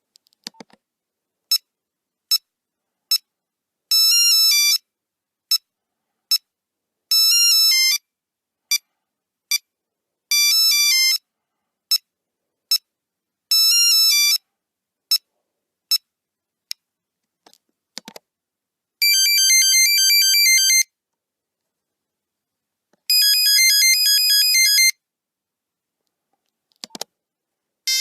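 Nokia 3310 monophonic ringtones, buzzy beep melodies from the phone's buzzer. The first tune mixes single beeps with quick runs of notes. After a click about 18 seconds in, a second tune plays two fast trilling phrases, and a further click follows near the end.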